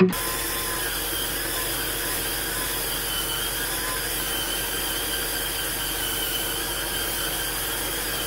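Hurricane Spin Scrubber's battery-powered motor running steadily, its brush head spinning and scrubbing against a shower floor. It makes an even whirring hiss.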